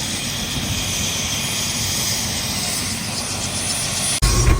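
Helicopter engine and rotor noise running steadily. About four seconds in it cuts abruptly to a louder, deeper running noise.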